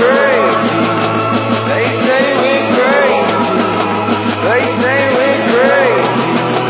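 Rock song with singing over a steady bass line and beat.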